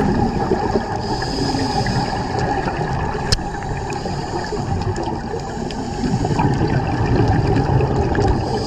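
Steady rush of water noise, even and continuous.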